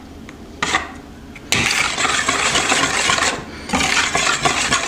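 Wire whisk beating a runny batter in a bowl: a quick metallic clattering of the wires against the bowl that starts about a second and a half in, pauses briefly after three seconds, then carries on.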